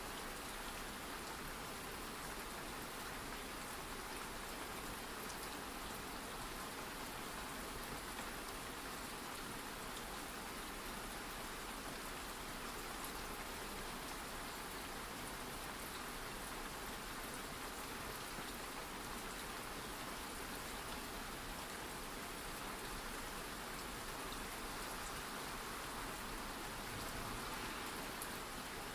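Steady ambient rain falling, an even hiss of raindrops.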